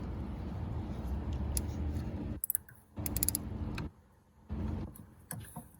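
Hand work with tools and metal parts on the engine's timing chain tensioner: stretches of rubbing, handling noise broken by a quick run of sharp metallic clicks about three seconds in.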